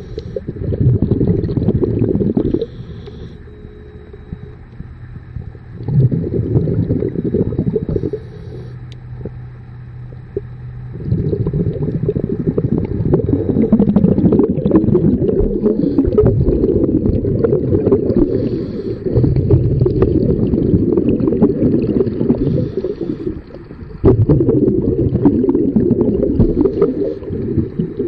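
Underwater breathing of a scuba diver: regulator exhaust bubbles gurgling and rumbling in stretches of a few seconds, with quieter gaps between breaths.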